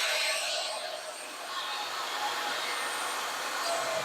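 A steady, hissing rush of machine noise, easing off a little in the first second and then holding level.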